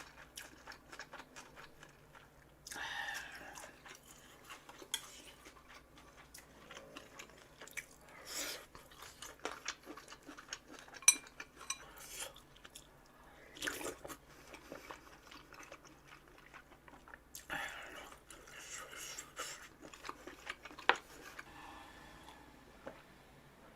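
Close-miked eating: chewing and crunching mouthfuls, with sharp clicks of cutlery and chopsticks against dishes.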